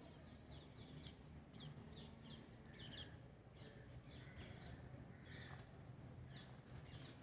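Faint twittering of small birds: clusters of quick, short, high falling chirps over a low steady background hum.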